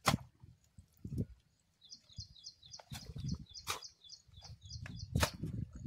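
A large wooden paddle-shaped beater striking wet, grassy soil: several sharp thuds at uneven gaps, the loudest right at the start and again about four and five seconds in. A small bird chirps over and over throughout.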